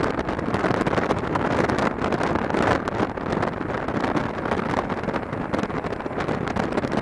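Wind rushing and buffeting over the microphone of a moving motorcycle, with the bike's engine running underneath as it rides along at steady speed.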